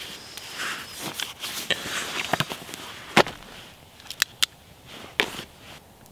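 Rustling of clothing and bedding as a person shifts on a sleeping mat and handles a paperback book, with several sharp clicks among the rustles.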